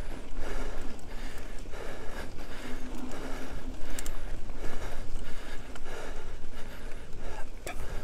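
Full-suspension mountain bike riding over a forest dirt track: tyre noise over the ground with irregular rattles and knocks from the bike.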